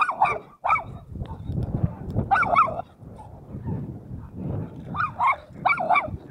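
Dog barking in short, quick clusters of two or three barks, a few seconds apart, with a low rumbling noise between the barks.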